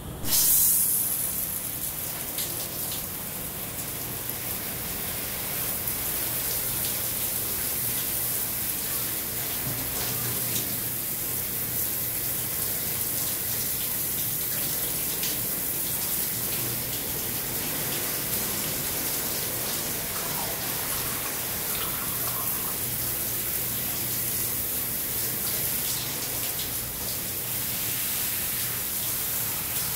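Shower running: water spraying in a steady hiss that comes on with a sudden gush right at the start.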